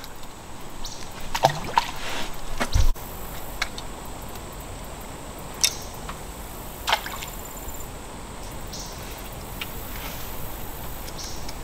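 Water lapping and sloshing against a small boat, with a few light clicks and knocks and one dull thump about three seconds in.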